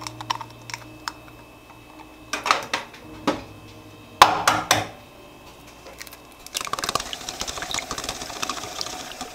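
Kitchen clatter at a stainless steel mixing bowl: a few separate knocks and clinks, the loudest about four seconds in, then a dense run of small rapid clicks for the last few seconds.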